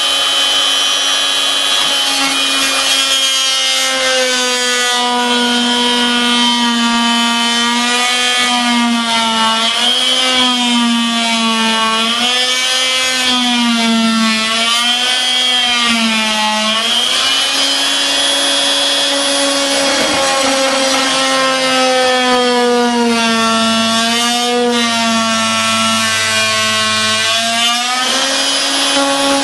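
Oscillating multi-tool with a small saw blade cutting into a wooden door: a loud, steady, pitched buzz whose pitch sags and wavers again and again as the blade bites into the wood and is eased off.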